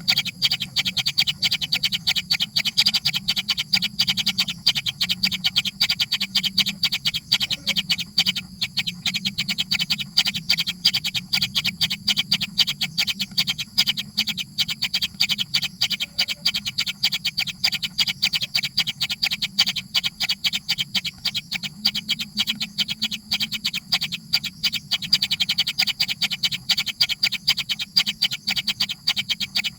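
Baby birds begging: a rapid, unbroken train of short, high chirps.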